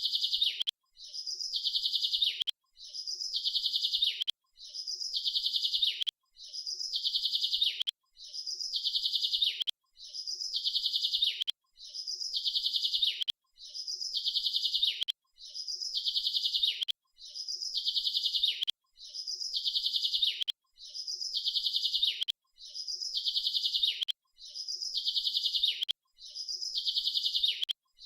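A small bird's song: a short chirp, then a rapid trill of about a second that falls in pitch at its end. The phrase repeats the same way about every two seconds, with brief silences between.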